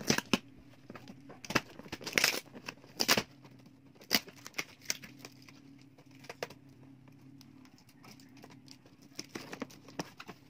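Scissors snipping through plastic shrink-wrap on a cardboard box, with irregular crinkling of the plastic and a few sharper snaps, then the cardboard lid being lifted open.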